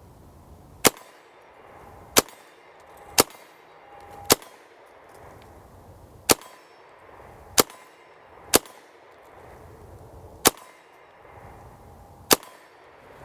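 Calico M900 9mm semi-automatic carbine fired in slow, aimed single shots: nine sharp reports, about one to two seconds apart, while the sights are being zeroed.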